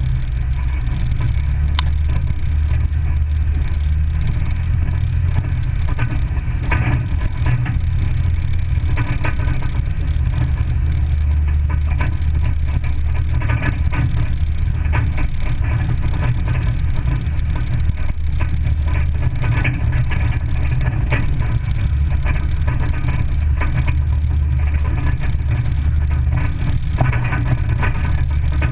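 Vehicle driving along a gravel road, heard from inside the cabin: a steady low engine and road rumble with frequent short clicks and clatters.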